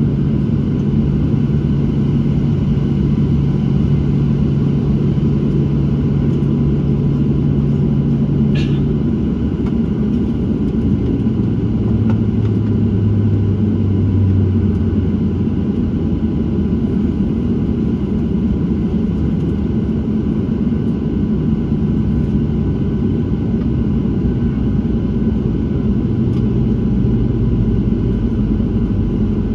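Cabin drone of a Boeing 737-700 with its CFM56-7B jet engines idling: a steady rumble, with a low hum that drops in pitch for a few seconds around the middle. One faint click about nine seconds in.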